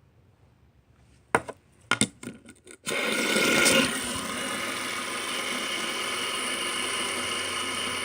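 A few sharp clicks and knocks as a fidget spinner is handled, then about three seconds in it is set spinning and runs on with a steady whirring hum, loudest just after the flick.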